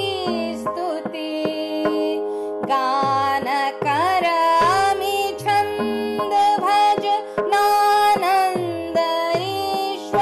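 Indian classical-style music: a steady drone under a melody that bends between notes, with regular low drum strokes, each sliding down in pitch, about every two-thirds of a second.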